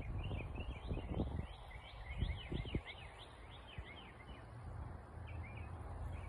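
Small birds chirping in quick runs of short notes, busiest in the first three seconds and sparser after. Low rumbles and bumps sit underneath.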